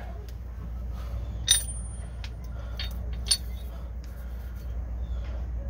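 A few light metallic clicks and clinks, the first ringing briefly, as a Sumo Spring polyurethane bumper and its metal top plate are set on a steel bracket over the axle, over a steady low background hum.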